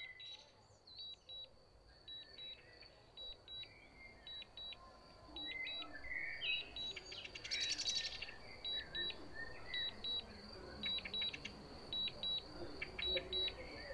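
DJI remote controller beeping in short double beeps about once a second, the alert that the drone is on return-to-home. Birds chirp faintly in between.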